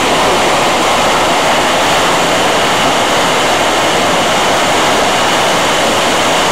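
Waterfall in spate, swollen with muddy monsoon floodwater, pouring over a rock cliff: a loud, steady rush of falling water.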